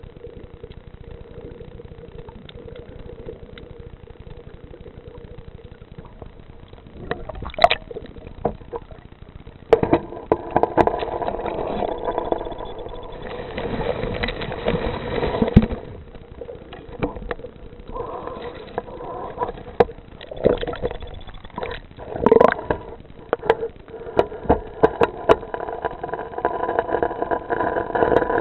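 An engine running steadily with a pitched hum, louder from about ten seconds in, with scattered knocks and clatter.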